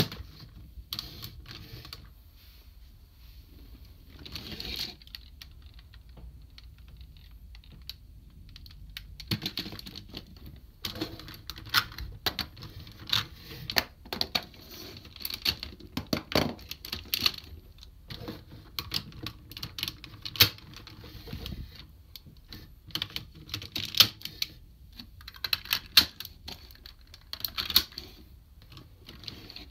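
Hard plastic parts of DX Kyuranger combining robot toys being pulled off and snapped into place by hand: a run of sharp plastic clicks and clacks, sparse at first, then dense from about a third of the way in, with a few louder snaps.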